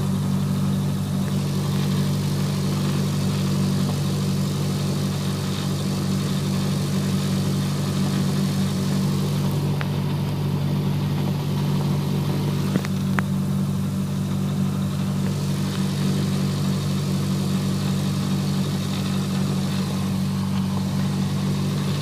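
Cessna 172 Skyhawk's four-cylinder piston engine and propeller idling steadily while the plane holds short of the runway, heard from inside the cabin. A couple of faint clicks come through, about ten and thirteen seconds in.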